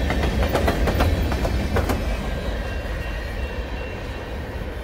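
Freight train's boxcars rolling past: a steady low rumble with wheels clicking over the rail joints, fading as the end of the train pulls away.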